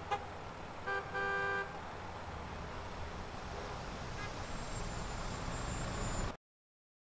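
Steady rush-hour road-traffic noise with a car horn tooting twice about a second in, a short toot then a longer one. The traffic noise cuts off abruptly near the end.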